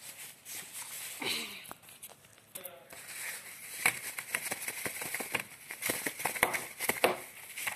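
Thin white packaging bag crinkling and rustling as it is handled, with many short crackles and clicks.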